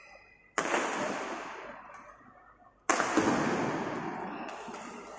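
Two sharp bangs about two seconds apart, each fading slowly in the long echo of a large indoor hall.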